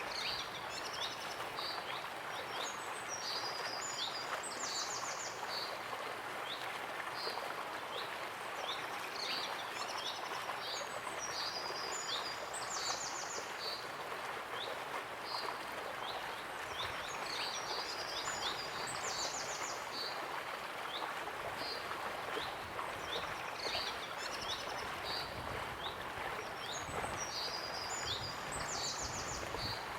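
Waterfall rushing steadily, with a bird calling over it in short high chirps and, every several seconds, a longer high song phrase ending in a rapid trill.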